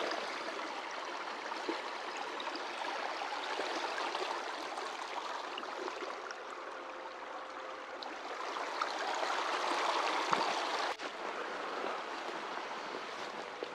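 Small rocky forest creek running: a steady rush and babble of water over stones.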